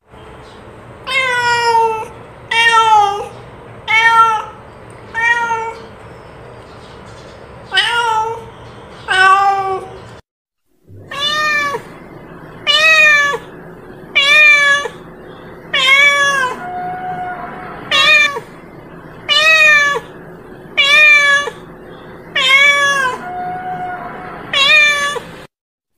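Domestic cat giving repeated calling meows, about seventeen short calls roughly one every one and a half seconds, several rising then falling in pitch, with a few longer, steadier ones near the end. The calls break off for under a second about ten seconds in.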